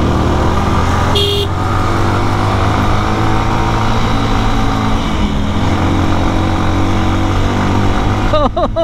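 Lifan KPR motorcycle engine running steadily under way, with a brief horn toot about a second in.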